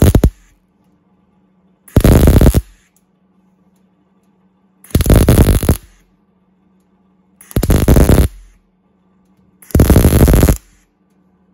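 MIG welder arc laying spot welds on a steel door panel: a second-long burst of arc noise for each weld, four of them spaced two to three seconds apart after the tail of one at the very start, with a faint steady hum between. The welds are short spots with pauses so the panel can cool and does not warp.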